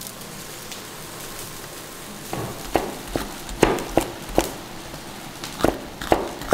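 Cleaver chopping a green pepper on a wooden cutting board: about eight sharp chops in two quick runs, starting about two seconds in. Under them, the wok of crawfish sizzles steadily.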